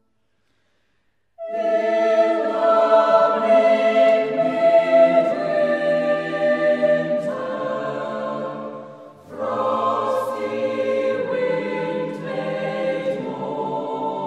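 Choir singing sustained chords, entering after about a second and a half of silence; the singing dies away briefly about nine seconds in, then starts again.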